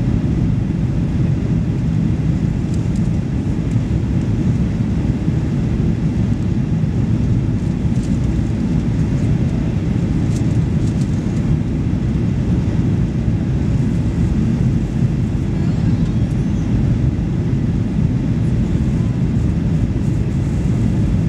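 Steady low roar inside the passenger cabin of a Boeing 737 Next Generation airliner in flight on approach, its engines and the rushing air heard through the fuselage.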